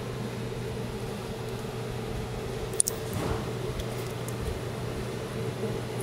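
Steady low machine hum, with one short sharp click a little before halfway.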